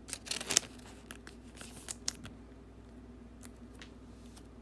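Thin clear plastic card sleeve crinkling as a trading card is slid into it: a quick run of crackles in the first second, then scattered light rustles and ticks.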